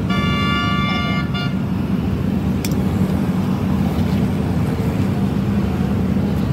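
A vehicle horn sounds once, held for about a second and a half near the start, over a steady low rumble of engine or road traffic.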